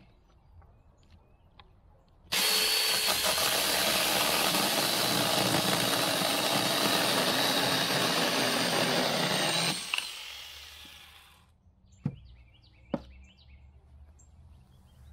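A 24 V battery-powered mini chainsaw starts abruptly and cuts through a small log for about seven and a half seconds, then its motor winds down and stops. Two short, sharp knocks follow a couple of seconds later.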